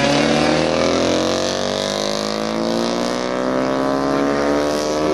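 Classic racing motorcycle's engine running under load, its pitch dipping slightly at first and then climbing steadily as it accelerates.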